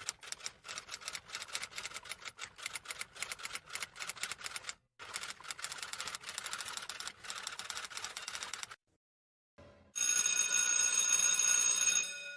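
Video game sound effects: a fast run of electronic clicks, about five a second, stopping about nine seconds in, then a steady electronic ringing tone for about two seconds.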